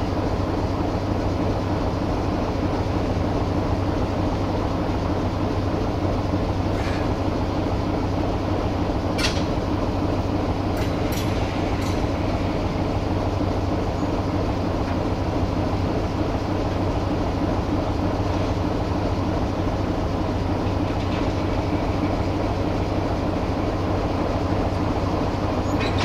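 LDE2150 diesel-electric shunting locomotive's engine running at a steady speed as it moves a long rake of cement hopper wagons slowly, with several brief sharp metallic sounds from the wagons about a third of the way through.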